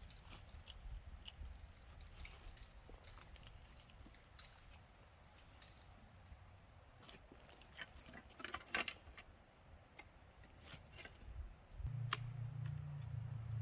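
Scattered light metallic clinks and jingles, in irregular clusters, of small metal items being handled; a low steady hum starts near the end.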